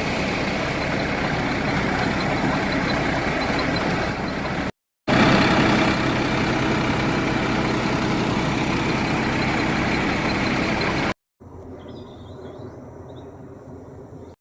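A steady, loud mechanical drone with a low hum, cut off abruptly twice. The last few seconds hold a much quieter background with faint high chirps.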